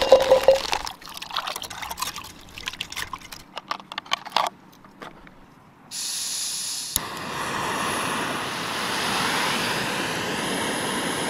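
Handling clatter of a small backpacking stove being unpacked from its plastic case and fitted to a gas canister. About six seconds in, gas starts hissing from the burner, a sharp click follows a second later, and then the lit canister-stove burner runs with a steady roar.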